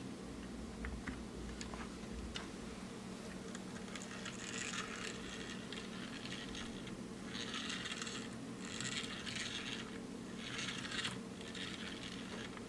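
Plastic toy vehicles being handled, giving a series of short scratchy, rattling rustles in the second half over a steady low hum.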